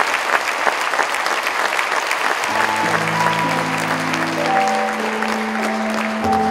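Audience applauding, then about two and a half seconds in music begins with long, steady held chords while the applause thins out beneath it.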